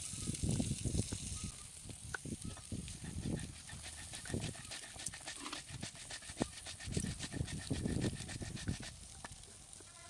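Cylindrical stone roller rolled and pressed back and forth on a flat stone grinding slab (sil-batta), crushing dry red chillies in repeated rough grinding strokes about once a second.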